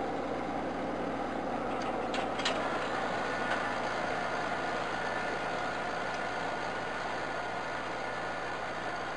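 Mahindra eMax 22 compact tractor's three-cylinder diesel engine running steadily under load as it pulls rear cultivators through garden soil, fading slightly as it moves away. A few sharp clicks about two seconds in.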